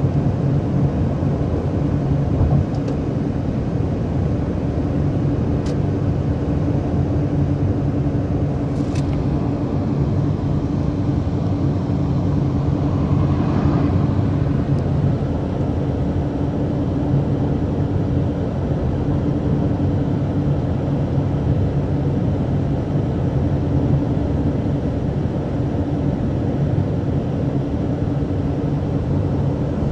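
Steady road and engine noise heard inside a moving car's cabin: a low rumble with a constant hum. A few faint ticks in the first ten seconds.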